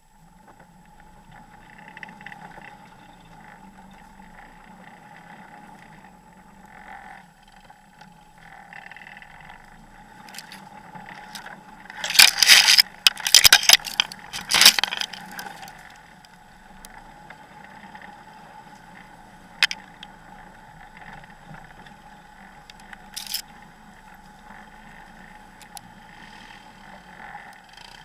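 Off-road vehicle engine running steadily at low speed. About twelve seconds in, tree branches scrape and swish loudly across the hood for about three seconds, and later two single sharp knocks stand out.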